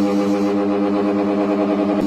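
Ceiling fan running with a steady, pitched electrical hum that flutters slightly.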